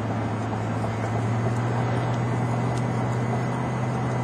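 Steady drone of a moving vehicle: an even low engine hum under a wash of road and wind noise.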